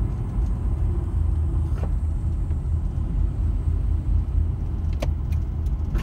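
Steady low rumble of a moving camper van's engine and tyres on the road, heard from inside the cabin, with a few light clicks near the end.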